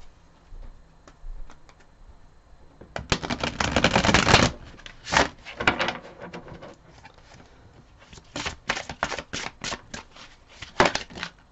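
A tarot deck of cards being shuffled by hand. A dense, rapid flutter of card edges comes about three seconds in, followed by shorter runs of sharp card clicks near the end.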